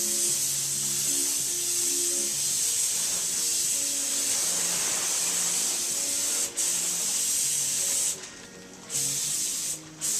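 Compressed-air paint spray gun hissing steadily as paint is sprayed onto a car bumper, the trigger let off for a moment about two-thirds through, then for most of a second near the end, and once more just before the end.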